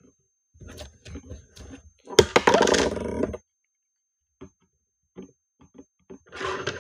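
Plastic slime container being handled and its lid screwed shut: scattered clicks and knocks, with one louder, noisier stretch of about a second about two seconds in.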